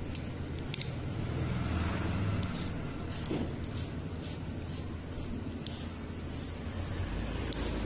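A small metal blade scraping along enamelled copper winding wire in short, irregular strokes, about a dozen in all: the wire's enamel is being scraped off the leads. A steady low hum runs underneath.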